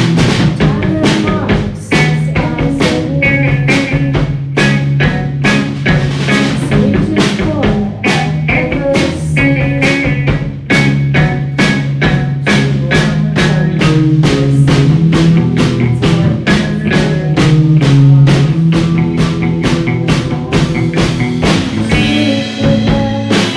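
Rock band playing live: a drum kit keeps a steady beat under bass guitar and electric guitar.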